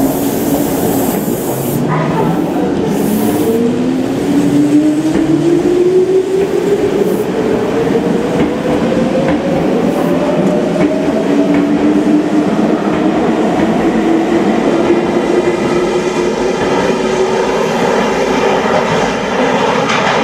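Meitetsu Panorama Super electric train pulling out of an underground station: a short hiss at the start, then a rising whine from the traction motors as it picks up speed, over the rumble and clatter of its wheels on the rails.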